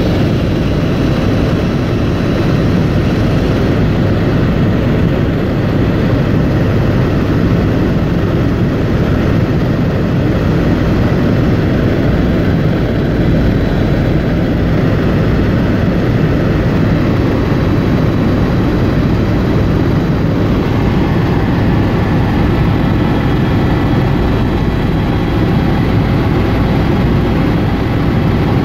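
Tour helicopter in flight heard from inside the cabin: a loud, steady engine and rotor noise with faint steady high whining tones above it.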